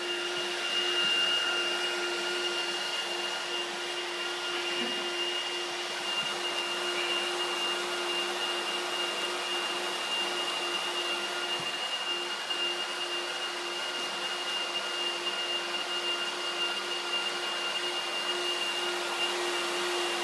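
Hand-held hot-air welding gun running steadily, its blower giving a constant whirring hiss with a steady high whine, as used to weld the seams of plastic sheeting.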